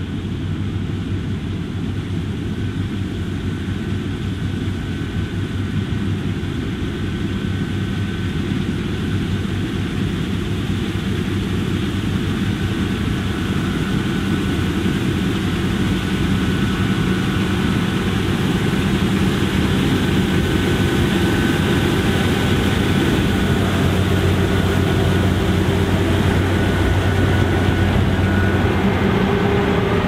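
John Deere X9 1100 combine harvesting canola: its six-cylinder diesel engine and threshing machinery run with a steady deep hum and a faint higher whine that comes and goes. The sound grows gradually louder as the combine draws near.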